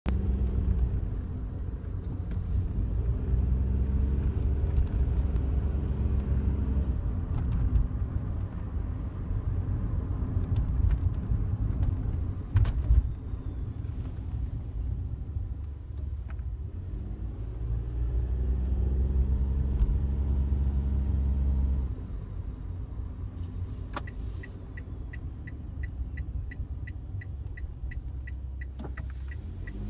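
Cabin noise of a Daihatsu Wake being driven: three-cylinder engine and road rumble rising and falling with the revs, with a few sharp clicks and a knock about halfway through, the passenger-side dashboard rattle the car has developed. The engine quietens about two-thirds through, and near the end a steady ticking starts at about three ticks a second, typical of the turn-signal relay.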